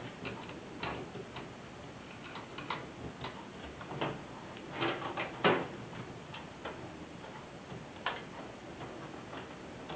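Irregular clicks, taps and small knocks of drive power-cable connectors and plastic being handled inside a computer case, the loudest a cluster about five seconds in.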